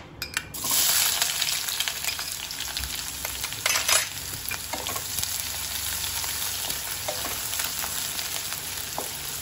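Sliced onions hitting hot oil in a wok and sizzling: a loud hiss bursts up about half a second in, then settles into a steady sizzle as they fry. A wooden spatula stirs them, adding small scrapes and clicks.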